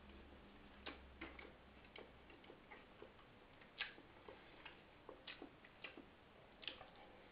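Faint, irregular wet clicks and lip smacks of a person chewing food with the mouth closed.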